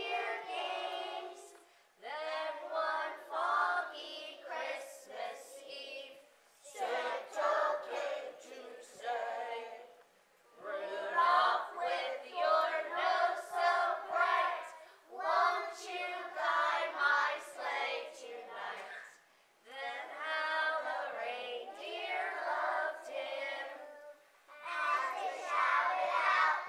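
A group of young children singing together as a choir, in short phrases broken by brief pauses.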